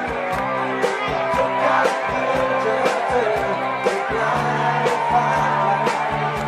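Live rock band playing: electric guitar and bass over a steady drum beat.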